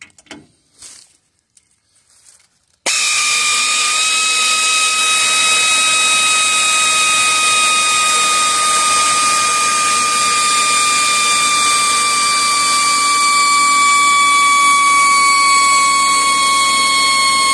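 A motor-driven machine starts suddenly about three seconds in and runs steadily, with a high whine over a hiss; its pitch sinks slowly as it runs. A few faint knocks come before it.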